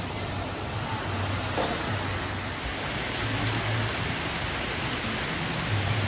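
Steady rushing hiss of running water from water slides and pool outflows.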